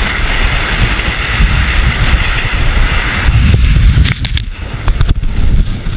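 Wind buffeting the GoPro at downhill-race speed, with ski edges hissing on the hard snow of the course. The hiss drops away about three seconds in, and a few sharp clicks follow.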